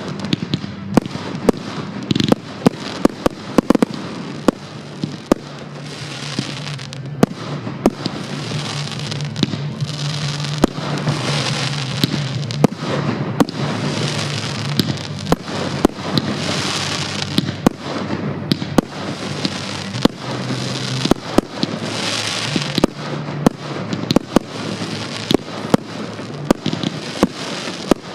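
Fireworks display: a dense string of sharp bangs and crackles, with several hissing, crackling swells every few seconds as shells burst overhead. A steady low hum runs underneath.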